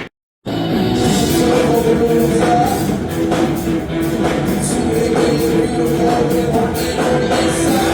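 Rock song with guitar, drums and singing, starting after a brief gap of silence at the beginning.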